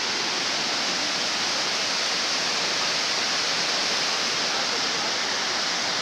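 Fast-flowing rocky stream, whitewater rushing over and between boulders in a steady, unbroken roar of water.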